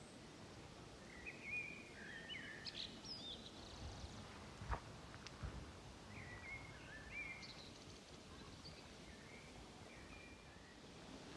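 Faint outdoor birdsong: two spells of quick whistled chirps and trills over a steady outdoor background. A couple of light knocks near the middle.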